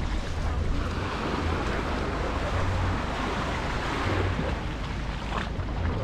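Small waves washing onto a sandy shore, with wind noise on the microphone.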